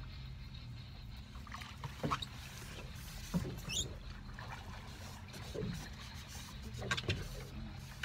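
Fishing boat's engine idling as a steady low hum, with a few scattered knocks and a short rising high squeak a little before the midpoint.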